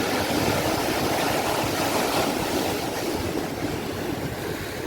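Sea waves washing on a shore: a steady, even rush of surf.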